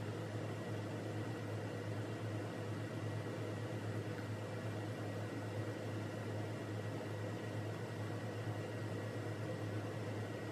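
A steady low hum under an even hiss, unchanging throughout, with no distinct events standing out.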